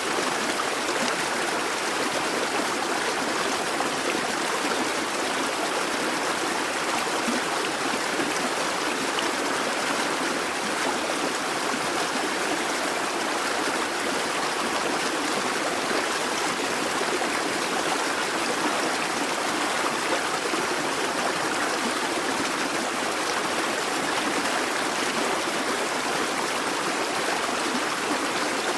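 Busy babbling brook: water running steadily over stones, a continuous even rush and babble.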